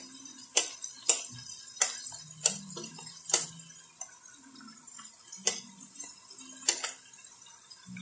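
A metal spoon clinking against a glass pot lid as diced vegetables are pushed off it into the pot: about eight sharp clicks at uneven spacing, with a longer pause midway.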